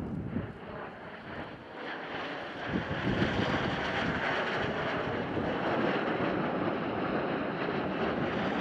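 TS-11 Iskra jet trainers flying past: a rushing turbojet noise that swells over the first three seconds, then holds steady and loud.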